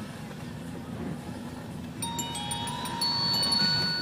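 Low vehicle rumble inside a moving car. About two seconds in, a short electronic melody of held high chime-like tones starts over it and gets louder a second later.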